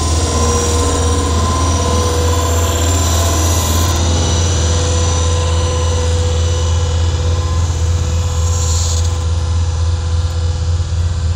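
Indian Railways passenger train coaches rolling past close by: a loud, steady low rumble with a faint thin ringing tone over it.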